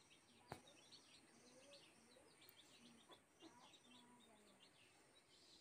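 Near silence with faint chirping of small birds throughout. A faint click about half a second in, and a weaker one around three seconds, from the metal stirring spoon touching the wok.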